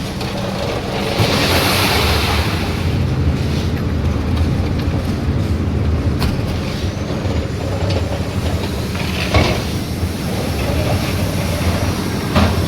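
Construction machinery with an engine running loudly and steadily, making a low drone. A few short clanks come through, one about nine seconds in and one near the end.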